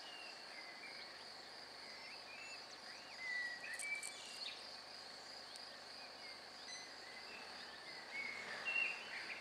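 Outdoor ambience: a steady, high insect drone with birds chirping in short calls, loudest in two clusters, about three seconds in and near the end.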